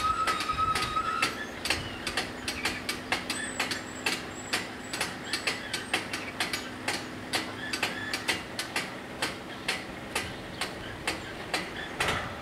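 Level crossing warning bell striking fast and evenly, about three to four strikes a second, then stopping after a louder final strike near the end. A faint steady hum runs underneath.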